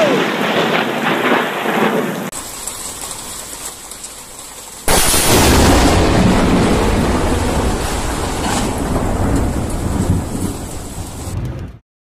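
Thunder rumbling after a close lightning strike, with rain falling. About five seconds in, loud storm noise of wind and heavy rain starts suddenly and carries on until it cuts off near the end.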